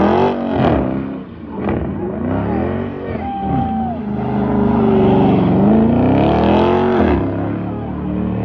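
Dodge Charger engine revving up and down again and again while the car spins its rear tyres in smoky donuts.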